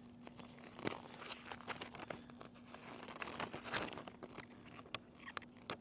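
Rustling and light clicks of hands handling things up close, louder about a second in and again near the middle, with a few sharp clicks near the end, over a faint steady hum.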